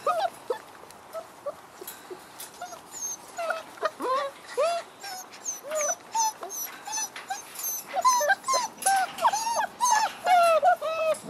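Several young puppies whining and yelping in short, high calls, coming more and more often toward the end.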